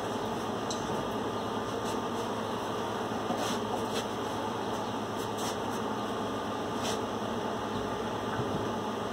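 Steady fan-like whirring noise, with a few faint clicks and light knocks as a benchtop bandsaw is swung down and handled.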